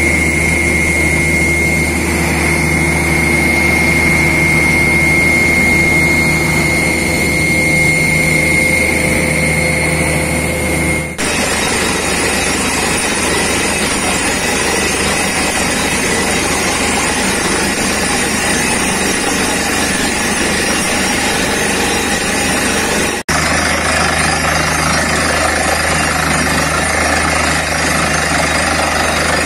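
Borewell drilling rig and its air compressor running steadily: a low engine hum with a high, steady whine. For a stretch in the middle the sound changes abruptly to an even rush as compressed air blows water and rock cuttings out of the hole.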